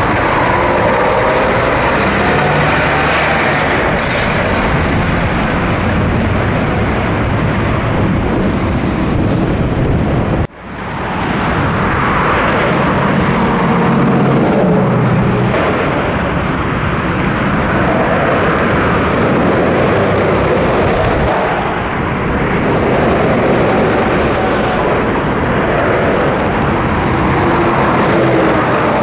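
Scania trucks and other motorway traffic passing: diesel engines and tyre noise, with tones that slide in pitch as vehicles go by. The sound breaks off abruptly about ten seconds in and picks up again.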